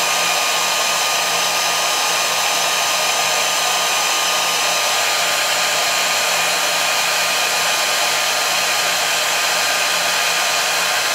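Handheld hair dryer blowing steadily, a rush of air with a faint constant whine. It is drying lace spray to set and lay down a wig's lace frontal.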